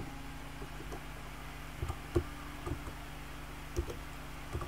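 A few separate keystrokes on a computer keyboard, irregularly spaced, over a steady low hum.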